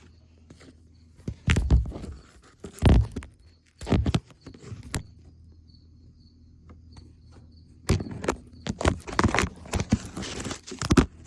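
Knocks and clatter from tools and parts being handled while working under a pickup's hood: four separate sharp knocks in the first half, then a busy run of clicking and rattling near the end.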